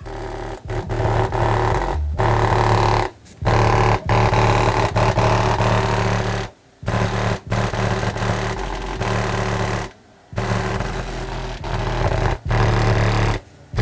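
Bass-heavy music played loud through a test speaker driven by a Blaupunkt GTA450 car amplifier, its rear channels bridged through the low-pass filter, so the pulsing bass line dominates. The sound drops out briefly every three seconds or so.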